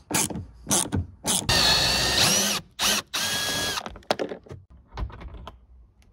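Cordless power screwdriver turning the screws of a plastic grab handle and ceiling trim. The motor runs in a few short trigger pulls, then in two longer runs, the first rising in pitch near its end, followed by a few light clicks and knocks.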